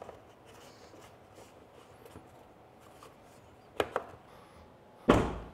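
Light handling noise and two sharp clicks as a side mirror is fitted back onto a Tesla Cybertruck's front door. Near the end comes a loud single thud that dies away quickly, the door being shut.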